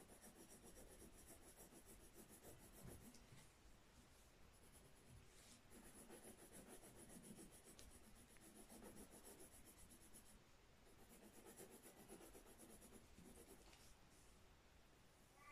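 Faint scratching of a pencil on paper as a drawing is shaded by hand, the strokes swelling and fading in stretches.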